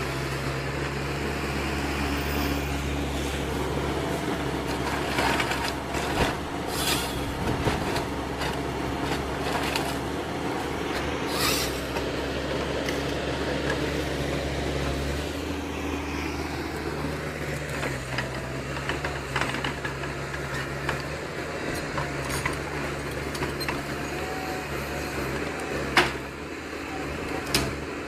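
Machinery running with a steady hum and several held tones, its pitch pattern shifting about halfway, with scattered clicks and knocks and one sharp knock near the end.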